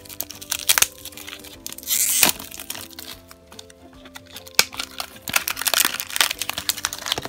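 Clear plastic shrink-wrap crinkling and crackling as it is peeled off a small plastic toy lunchbox, with sharper crackles in the second half as the lid is opened. Soft background music with held notes plays underneath.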